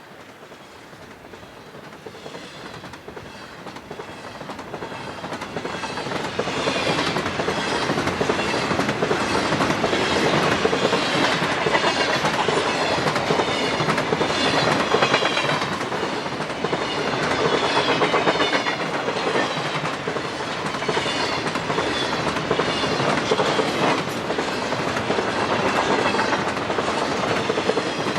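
Train passing close by, its wheels clicking over the rail joints with a steady rumble; the sound builds over the first several seconds, then stays loud.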